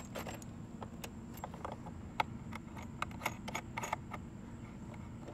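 Metal coax cable connectors clicking and scraping as a connector is handled and threaded onto a lightning arrestor port: a scattered string of light sharp clicks, thinning out after about four seconds.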